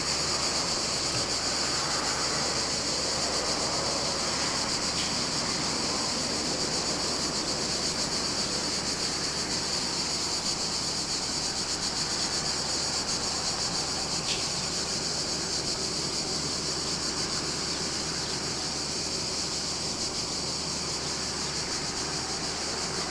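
Steady background noise with a constant high-pitched hiss over a low, even rumble, and no distinct events.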